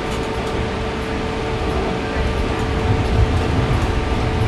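Interior running noise of a Bombardier Flexity Outlook low-floor streetcar under way: a low rumble from the wheels and running gear under a steady hum, getting a little louder about two to three seconds in.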